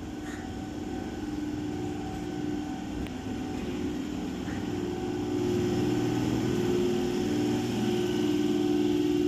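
Train moving slowly through a rail yard during shunting: a steady mechanical drone with a low hum, swelling louder about five seconds in.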